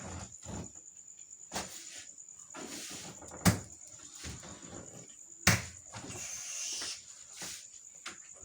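A few sharp knocks, the loudest two about two seconds apart, over a faint steady high-pitched whine.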